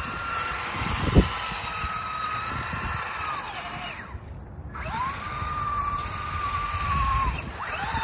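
Small electric RC truggy's motor whining under throttle. The whine sags and cuts out a little after three and a half seconds, whines back up about a second later, and falls off again near the end. A sharp knock about a second in.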